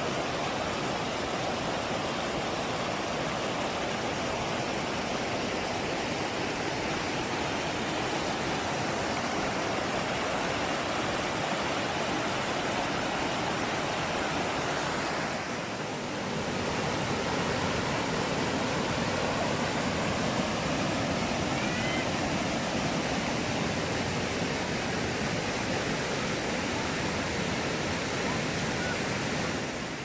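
Rushing water of a rocky mountain stream cascading over stones and granite slabs, a steady dense white-water noise. It dips briefly about halfway through, then carries on a little louder.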